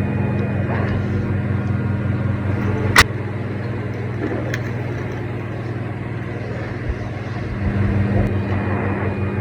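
Steady low machine hum, with a single sharp click about three seconds in.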